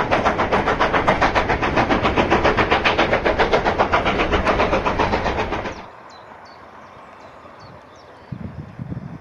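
Steam-hauled train running past at speed, a loud, rapid, even beat of roughly seven strokes a second. It cuts off abruptly about six seconds in, leaving a quiet background with a few faint high chirps.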